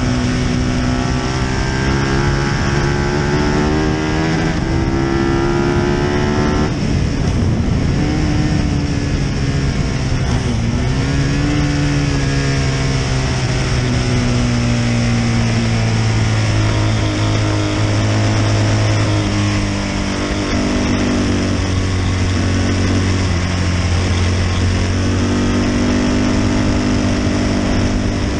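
Britten V1000's V-twin racing engine at speed, heard from low beside the front wheel with wind and road rush over it. The engine note climbs, breaks off about seven seconds in, sags and rises again around ten seconds, then runs at a steadier pitch for the rest.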